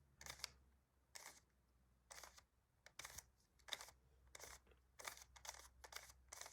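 A Rubik's cube's plastic layers being turned by hand through the 4-move algorithm: a run of faint clicks, one per turn, coming quicker in the second half.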